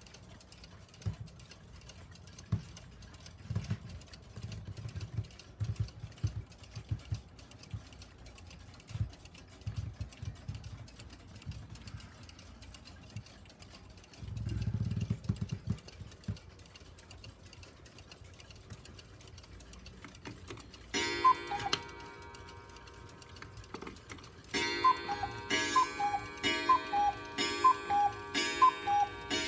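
A cuckoo clock, a Schatz case fitted with a CCMC movement, ticks quietly under low handling bumps. About three-quarters of the way in it starts striking the hour: repeated two-note cuckoo calls from its pair of bellows whistles, high then low, about once a second, over a sustained ringing tone.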